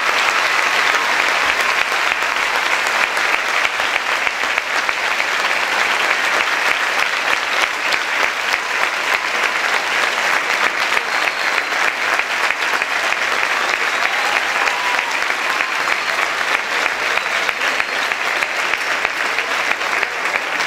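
An audience applauding at length, many hands clapping together without a break.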